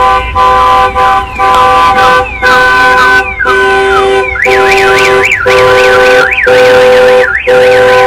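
Car alarm siren going off loud, cycling through its tones: short repeated tone blasts and falling whoops, then from about halfway a fast up-and-down warble.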